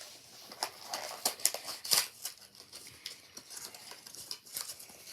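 Crinkling and tearing of a baseball card pack's wrapper as it is opened by hand: irregular sharp crackles scattered throughout.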